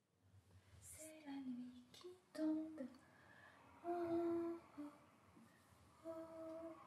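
A woman softly humming a slow, lullaby-like tune: a short falling phrase, then a few long held notes.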